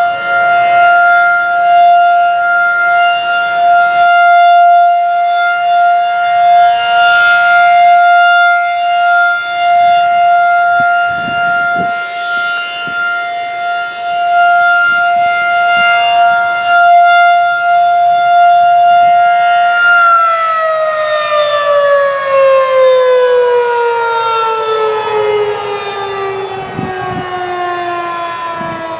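Federal Signal 2001-SRN electromechanical rotating warning siren sounding a steady single tone on test, its loudness swelling and fading as the head turns. About two-thirds of the way through it is switched off and winds down, its pitch falling steadily.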